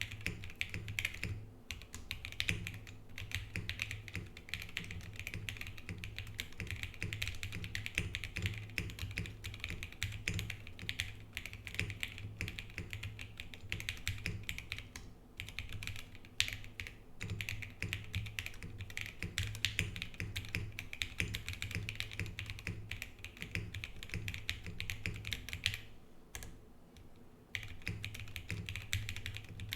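Mechanical keyboard typed on steadily: SP-Star Meteor White switches with PBT keycaps on an aluminium plate in a rubber tadpole-mounted Frog TKL, a dense run of clacking keystrokes. It pauses briefly a few times, the longest near the end, before the typing picks up again.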